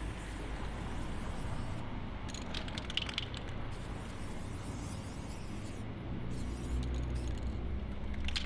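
Aerosol spray-paint can hissing in on-off bursts as a graffiti outline is sprayed onto a steel shipping container. A quick clicking rattle comes about two to three and a half seconds in. A steady low outdoor rumble runs underneath.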